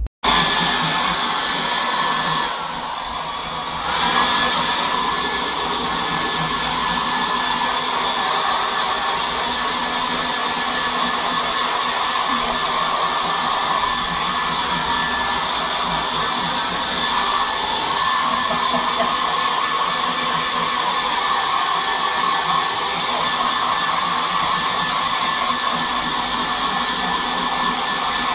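Handheld hair dryer blowing on a wet Yorkshire terrier puppy's coat, switched on at the start and running steadily with a thin whine over its airflow; it drops briefly a few seconds in, then comes back up.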